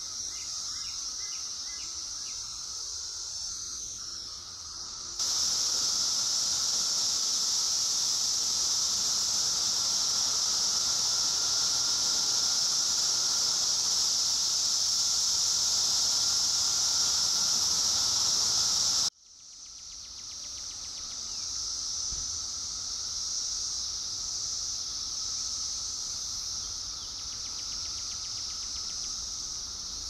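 Dense, continuous chorus of Brood X periodical cicadas, a steady high-pitched drone with a fainter lower hum beneath it. It jumps louder about five seconds in, cuts out abruptly around nineteen seconds in, then swells back.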